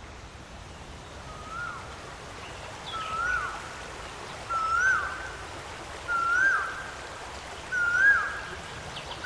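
A bird calling repeatedly: five short notes about a second and a half apart, each rising and then dropping quickly, growing louder. Behind them is a faint steady hiss of running water.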